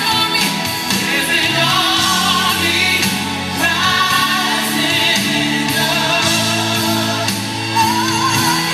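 Gospel music: a singer with a choir over held low notes that change about once a second.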